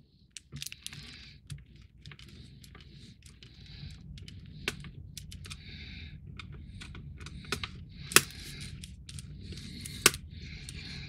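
Small FM screws being driven into the plastic lower skeleton of a model with a screwdriver: a series of short scratchy turns with a few sharp clicks.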